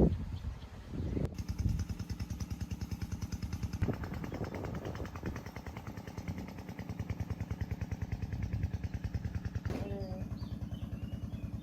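A small engine running with a steady, fast putter.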